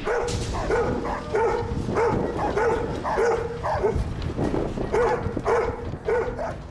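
A dog barking in a steady run of short, sharp barks, about two a second: fired-up barking at another dog in a stand-off.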